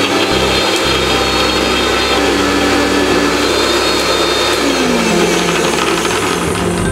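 Electric mixer grinder (mixie) running steadily at full speed, grinding peeled garlic cloves into juice, then cutting off at the end.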